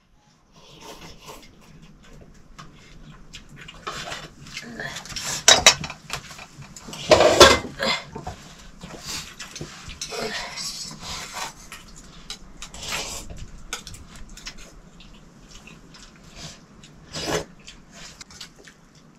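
Cutlery clinking and scraping against dishes in irregular clatters during a meal, the loudest knocks about five and seven seconds in.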